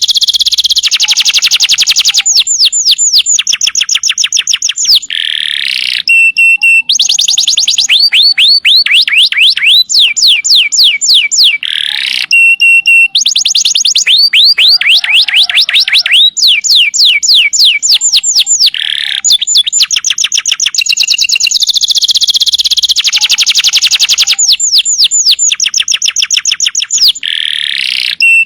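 Domestic canary singing loudly without pause: fast trills of repeated sweeping high notes, broken by short rising slides and held whistles, with the same phrase coming round about every seven seconds.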